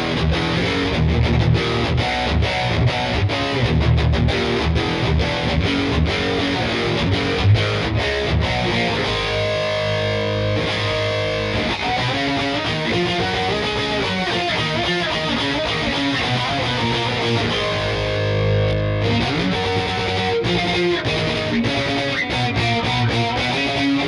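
Mclorence JP100 electric guitar played with heavy distortion: driving low riffs and lead lines, with longer held notes about halfway through and again later.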